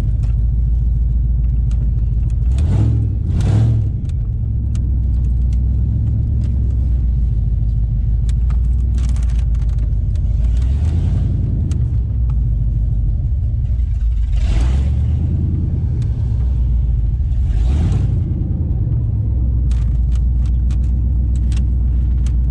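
Holden 5.0 L V8 in a VS HSV Clubsport driving with no exhaust fitted: a loud, steady, deep engine rumble at road speed, with a few brief swells of rushing noise.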